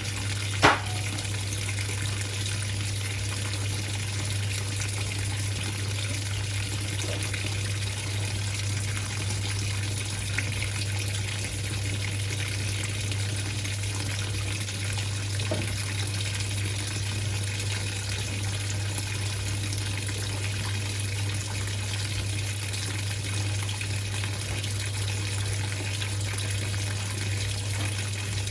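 Whirlpool 3RLSQ8033SWD top-loading washing machine filling with water: a steady rush of water pouring into the tub over a low steady hum, with one sharp click about a second in.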